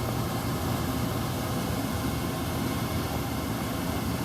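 A 30-year-old gas furnace running: a steady low rumble with an even hiss. It is firing on only one burner tube, with a weak, wafting flame and the other burner tubes unlit.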